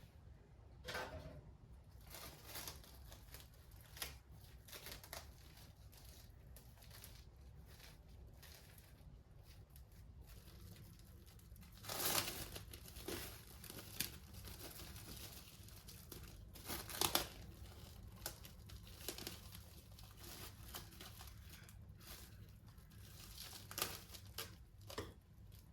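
Crinkling and rustling, as of a paper or plastic bag being handled, mixed with small handling clicks; the loudest rustles come about 12 and 17 seconds in.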